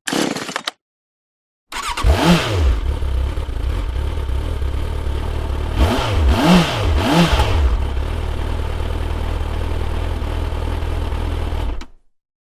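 Motorcycle engine starting and revved once as it catches, then idling, blipped twice in quick succession, and idling steadily until it is switched off near the end. A short, separate noise is cut off less than a second in.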